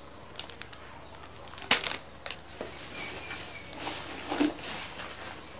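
Plastic packaging crinkling and rustling as hands rummage through it. There is a sharp crackle about one and a half seconds in, and a longer rustle near four seconds.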